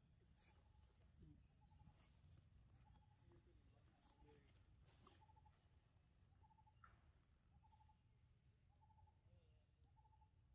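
Near silence with faint insect sounds: a short pulsed chirp repeating about once a second over a steady high-pitched whine, with a few faint clicks.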